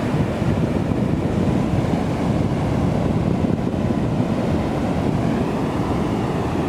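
Atlantic Ocean surf washing onto the beach, mixed with wind blowing on the microphone: a steady, deep rushing noise with no break.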